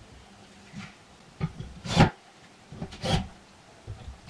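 A few short clicks and knocks of screws and a cordless drill being handled on a steel-tube frame and wooden workbench. The sharpest knock comes about two seconds in and a double knock about three seconds in.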